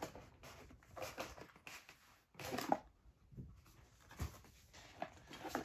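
Faint rustling and handling noises: the glossy pages of a booklet being turned and cardboard box contents being moved, in short irregular scrapes and rustles.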